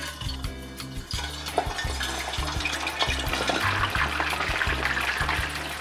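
Raw chicken wings lowered with tongs into deep-frying oil at 350 °F, the oil bubbling and sizzling, starting about a second in and growing louder and denser as more wings go in.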